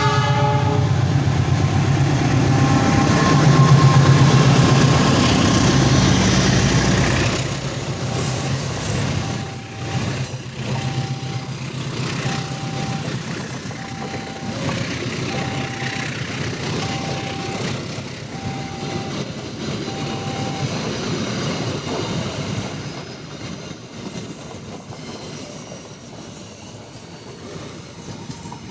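A diesel-hauled passenger train running past: a heavy locomotive engine rumble for the first several seconds, then a lighter, steady clatter of carriages rolling over the rails. Through the middle, a short tone repeats about once a second.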